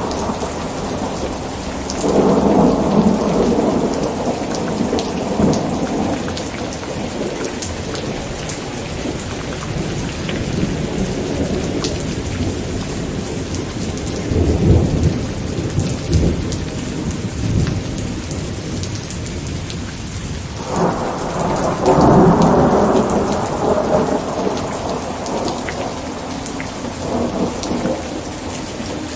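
Steady rain falling, with rolls of thunder rumbling over it: one about two seconds in, a deeper low one around the middle, and the loudest about two-thirds of the way through.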